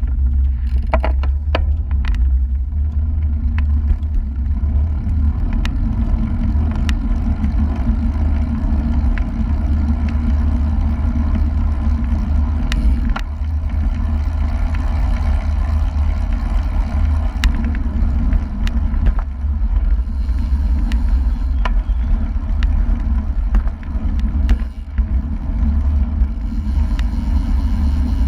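Steady wind rumble over the microphone as a road bike picks up speed to about 30 km/h in a group ride, with road and tyre noise under it and a few sharp clicks.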